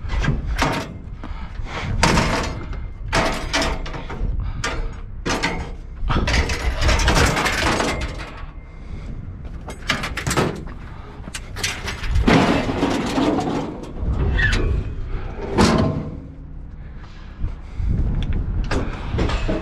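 Repeated clanks, bangs and scraping of sheet metal as a scrap appliance is wrestled free and moved about, with a brief squeal partway through.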